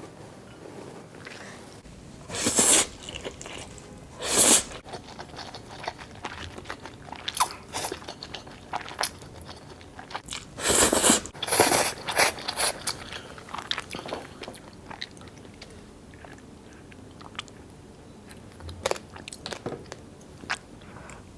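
Someone eating fire noodles close to the microphone: several short, loud slurps, about three in the first half and a cluster in the middle, with chewing and small clicks in between.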